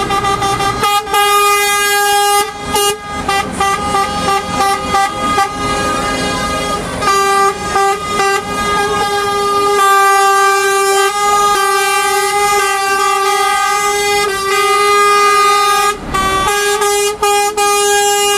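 Truck air horns blowing as trucks drive past: a rapid run of short toots in the first few seconds, then long held blasts with brief breaks from about seven seconds on.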